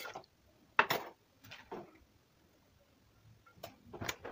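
A few sharp knocks and clicks of cooking utensils handled at an aluminium cooking pot while shredded cabbage is added to a stew. The loudest comes about a second in, and there is a quiet stretch in the middle.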